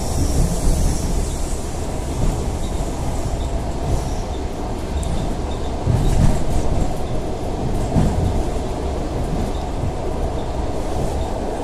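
ED4M electric multiple unit running along the track, heard from aboard: a steady low rumble of wheels on rail, with a few heavier knocks as the wheels cross rail joints.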